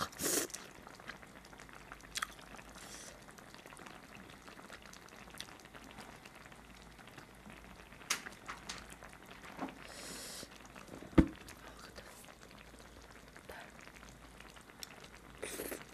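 Eating sounds: chopsticks and a spoon picking at braised mackerel in a pot, with soft scattered clicks and one sharp clink against the pot about eleven seconds in. There are a few short breathy or slurping noises.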